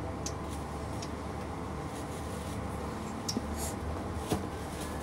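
A few light clicks and taps of small objects being handled, over a steady low background hum.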